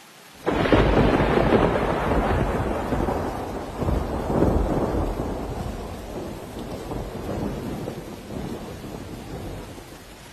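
A thunderclap breaks about half a second in over steady heavy rain, then rolls on with a second surge around four seconds in and slowly dies away back to the rain's hiss.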